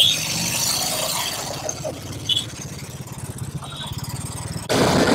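Cruiser motorcycle engine running at low revs with a rhythmic low pulsing as it moves off through traffic, with two short high beeps over it. Near the end it gives way abruptly to louder road and traffic noise.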